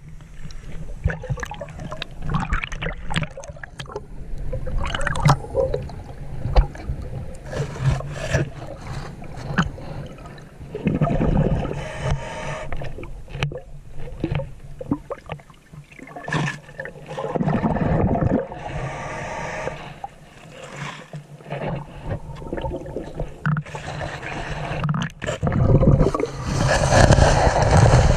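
Muffled underwater sound of a submerged camera moving through lake water: uneven gurgling and sloshing with scattered clicks, knocks and scrapes, swelling louder near the end.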